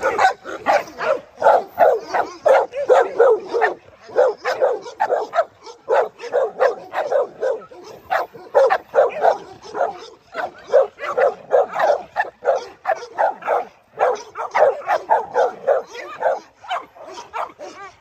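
Pit bulls barking in rapid, continuous runs, several barks a second, broken by brief pauses.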